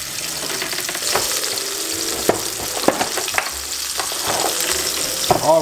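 Salmon fillet frying skin-side down in hot olive oil in a nonstick pan: a steady sizzle with a few sharp pops in the middle.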